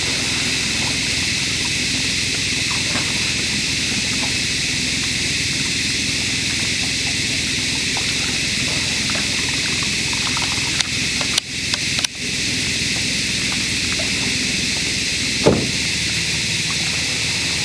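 Steady outdoor background noise with an even high hiss. A few sharp clicks and brief dropouts come a little past the middle, and a short low falling sound comes near the end.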